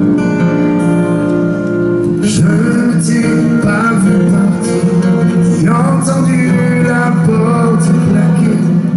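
Live band music: strummed guitar with bass and drums, held chords at first and the fuller band coming in about two seconds in, with a man singing over it.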